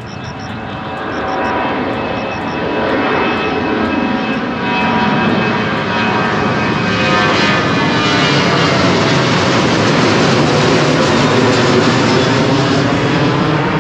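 Jet airliner's engines at takeoff thrust, a loud roar with a whine in it that builds over the first several seconds as the plane comes closer, then holds at full loudness with a sweeping, shifting hiss as it passes.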